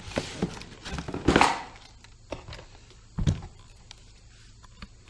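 Handling noise as a plastic toy RC buggy and its transmitter are taken out of a cardboard box: rustling and light knocks of cardboard and plastic, then a single thud about three seconds in as the car is set down on the table.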